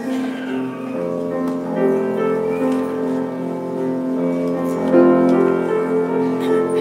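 Slow instrumental keyboard music in sustained chords, played as offertory music at Mass while the collection is taken.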